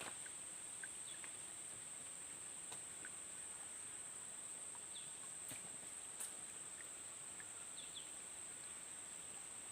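Steady high-pitched insect drone, with a few short bird chirps and faint clicks scattered through it.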